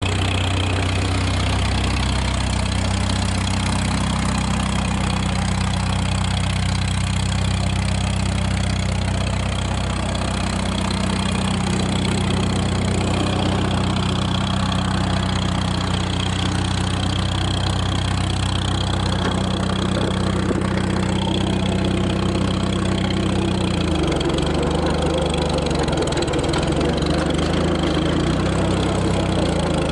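Small 1930s crawler trail tractor's engine idling steadily. About 24 seconds in its note shifts lower.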